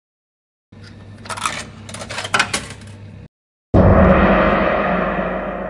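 Arcade-style sound effect of coins clinking into a coin slot, several metallic clicks over about two and a half seconds. After a short pause, a sudden deep hit rings out and slowly fades, like a struck gong.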